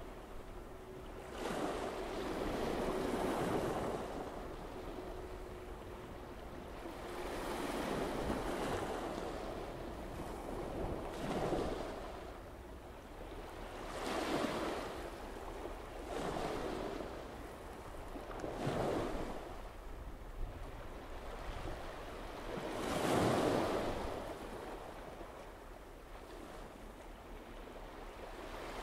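Sea waves and wind, swelling and fading in irregular surges every few seconds.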